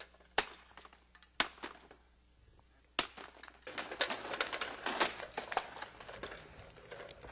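Three sharp, hard knocks in the first three seconds. Then, from about halfway, a continuous clattering scrape as a broken upright vacuum cleaner is dragged on its wheels across concrete pavement.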